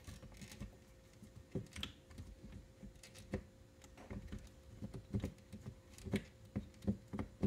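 Quiet, irregular plastic clicks and taps from the drivetrain parts of a 1/10-scale RC truck being worked by hand, as the drive shaft is pushed back onto the rear differential. The parts are not seating easily, and the clicks come more often in the second half.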